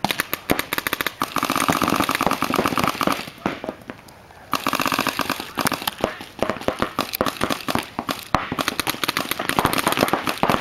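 Paintball markers firing in fast, overlapping strings of shots, several guns at once. The firing stops for about a second a little past the middle, then starts again.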